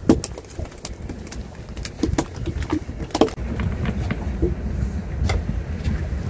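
Steady low rumble of a small fishing boat at sea in the wind, with scattered sharp knocks and clicks from gear being handled on deck.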